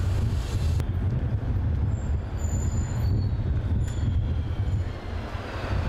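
Outdoor street ambience dominated by a steady low rumble, with no clear single event.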